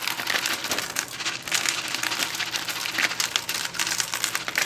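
Small gravel being poured and scattered by hand onto a layer of expanded clay pebbles: a dense, irregular patter of tiny clicks and rattles.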